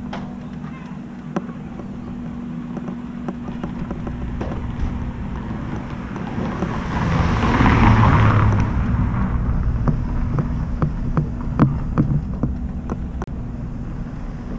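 Outdoor ambience with a steady low machine hum. A vehicle passes, swelling and fading between about six and nine and a half seconds in, over light footsteps on the pavement.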